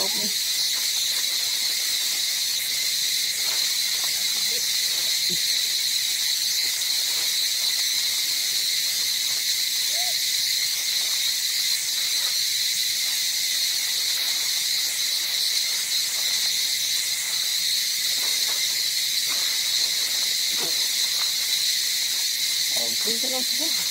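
Continuous high-pitched insect chorus, a steady droning buzz that does not change, with a few faint rustles and one brief faint call.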